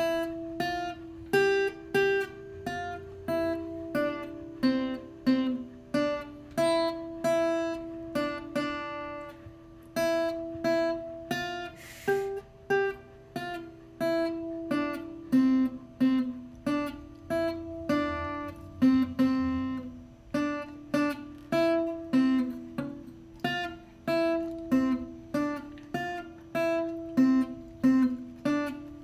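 Acoustic guitar being picked, a slow tune of single notes played one after another, each left to ring out.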